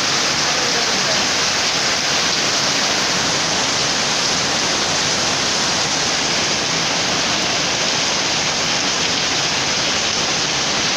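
Heavy rain pouring down, a steady dense hiss with no breaks.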